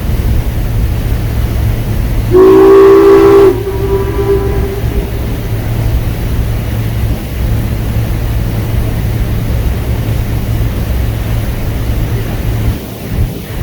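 A boat's horn sounds one loud blast of about a second, several tones together, then fades over the next second or so. A steady low rumble of wind or engine runs under it.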